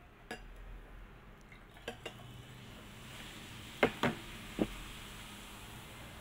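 Glass clinking against glass as the baking soda and vinegar are combined: a few light clinks, then three sharper clinks about four seconds in. A faint fizzing hiss from the baking soda and vinegar reaction comes in during the second half.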